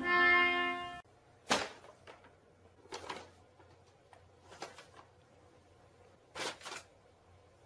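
A pitched musical tone cuts off about a second in, followed by four or five separate short knocks or bumps over a quiet background.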